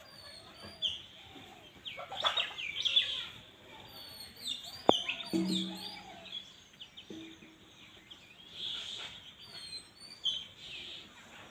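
Birds chirping and calling in short bursts, with one sharp click about five seconds in and a short low call just after it.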